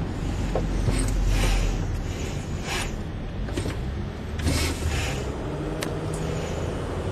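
Inside a Mercedes Sprinter van driving slowly on a wet road: a steady low rumble from the van, with a soft swish every second or two and a light click near the end.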